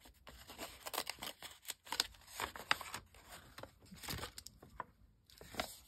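Kraft paper envelope rustling and crinkling as it is handled open and cling stamps are slid out, with small irregular clicks and scrapes.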